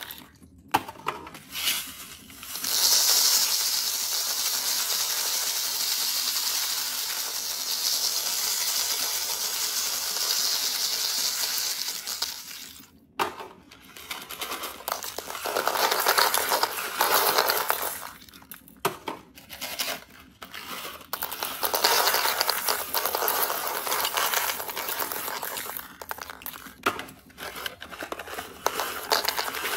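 Small candies pouring out of cardboard boxes and rattling onto plastic balls in a toilet bowl, in several long pours of up to about ten seconds with short breaks between them.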